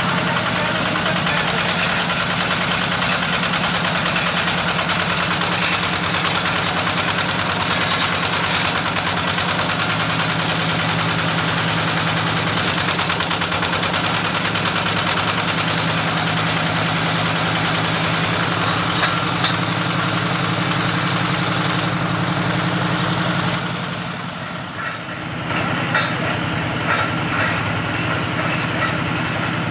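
Small stationary single-cylinder diesel engine running steadily as it belt-drives a water-well drilling rig. The sound dips briefly about three-quarters of the way through, then carries on.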